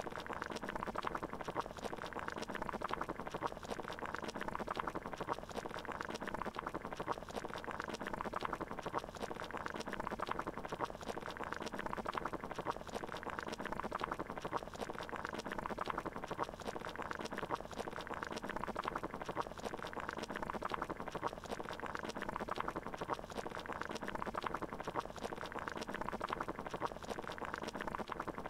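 Water boiling, a steady, unchanging bubbling.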